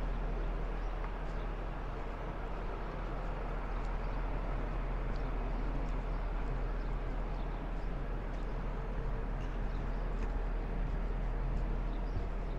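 Steady outdoor city-waterfront background rumble, with faint scattered ticks.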